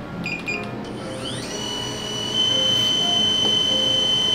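DJI Avata drone fitted with aftermarket three-blade propellers starting its motors: a couple of short beeps, then the motors spin up with a rising whine about a second in and settle into a steady high-pitched propeller whine, which steps louder a little past halfway.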